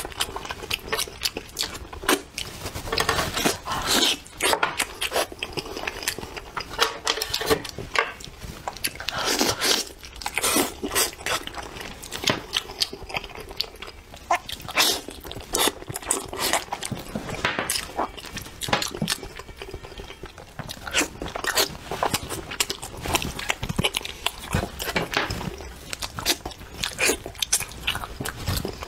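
A person chewing and gnawing braised spicy lamb trotter close to the microphone: wet smacking and sucking with many irregular clicks and crunches.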